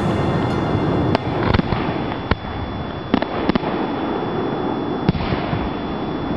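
Aerial firework shells bursting: about six sharp bangs at irregular intervals over a steady background of noise.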